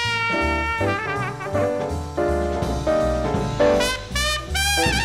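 Jazz orchestra playing an instrumental break with no singing: brass with a trumpet carrying the melody, over a bass line stepping in a steady beat.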